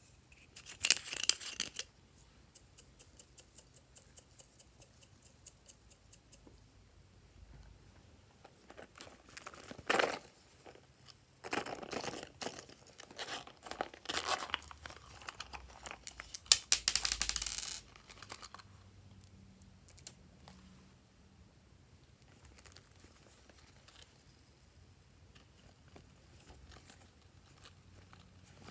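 Hands handling hard plastic slime containers: a run of light clicks and taps, broken by louder crinkling and crackling bursts about a second in, around ten seconds, and for several seconds a little past the middle. Toward the end the sound dies down to faint ticks.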